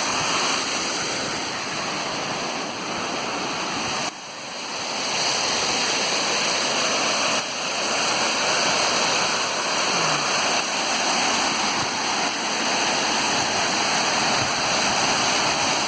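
Waterfall rushing in a steady, loud roar of falling water. The level drops suddenly about four seconds in and builds back within a second or two.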